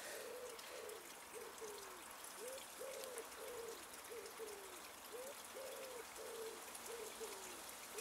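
A dove cooing faintly in the background, a run of soft low coos repeating in short groups.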